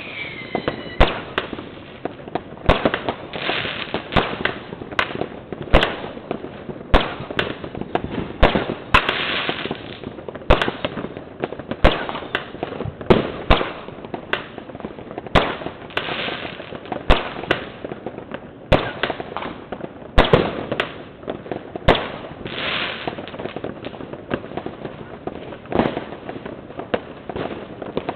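New Year's fireworks and firecrackers going off around the neighbourhood: frequent, irregular sharp bangs, several stretches of crackling, and one falling whistle in the first second.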